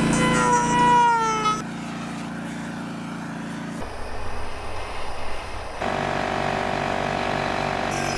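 Corded handheld power carving tools running on wood, heard as a string of short clips that cut abruptly from one to the next every two seconds or so. The first tool's pitch falls as it winds down.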